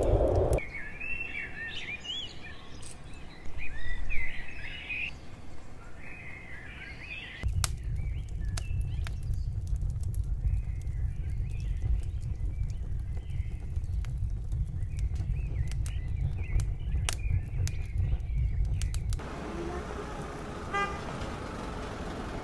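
Birds chirping over a low rumble; the rumble grows louder about a third of the way in and eases off near the end.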